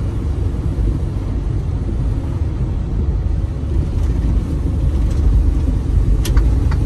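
Inside a semi-truck's cab while cruising in traffic at about 30 mph: a steady low rumble of engine and road noise, with one brief click near the end.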